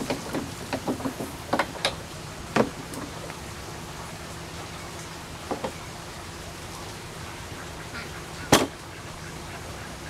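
Honeybees at a hive entrance, a steady low hum, broken by a string of short sharp sounds in the first three seconds, two more around the middle, and the loudest, a sharp knock, near the end.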